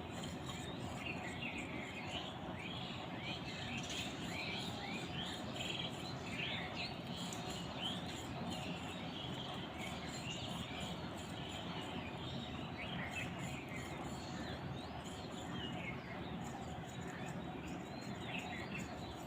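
A dense, continuous chorus of many birds making short chirping calls, over a steady background hiss.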